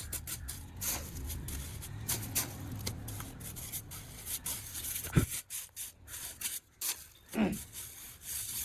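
Scraping and rubbing of hand tools at work, with scattered clicks and a sharp knock about five seconds in.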